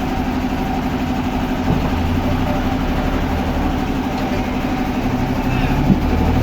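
An engine running steadily at idle, with one short knock near the end.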